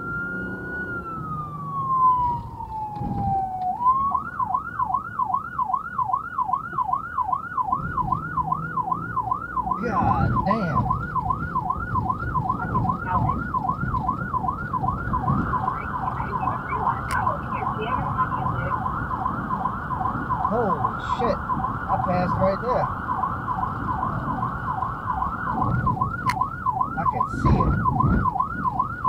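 Electronic emergency siren on a responding fire vehicle: a slow wail falling in pitch, switched about four seconds in to a fast yelp that repeats steadily, over engine and road noise.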